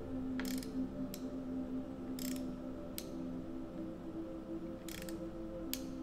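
Small hand ratchet clicking as it tightens the saddle clamp bolt on a bicycle seatpost, in short bursts of clicks spaced irregularly, about a second apart. Soft background music with steady tones plays underneath.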